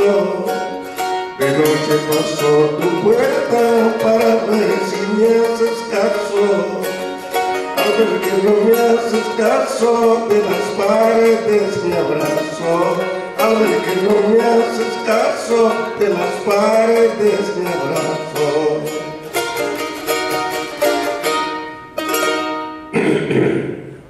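Charango played in fast strums and plucks, with a man singing along. The song ends on a final strummed chord about a second before the end.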